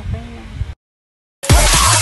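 Electronic dance music in a dubstep style, quieter with a wavering synth line, cuts out abruptly into about half a second of dead silence. It then comes back loud with a heavy bass hit.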